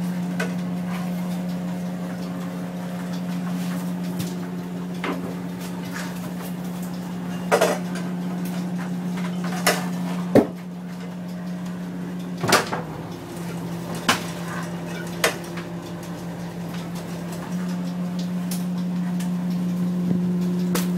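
A fishing boat's engine running with a steady low drone, broken through the middle by about six sharp knocks and clatters on board.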